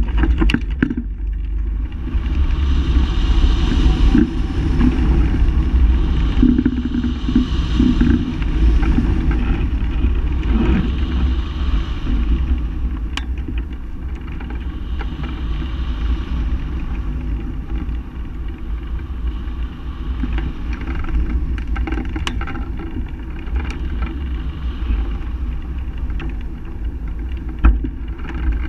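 Wind rushing over the microphone of a camera mounted on a hang glider in flight: a loud, steady, low buffeting rumble with a hiss above it.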